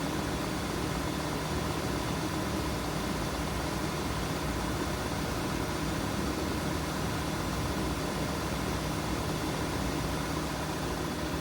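2016 Volkswagen Tiguan's engine idling steadily, with a faint constant hum.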